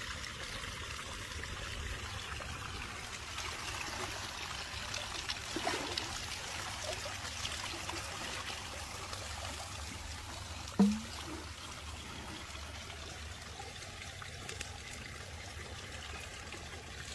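Water trickling and lapping steadily in a shallow pool as a bear wades through it. A short, sharper sound stands out about eleven seconds in.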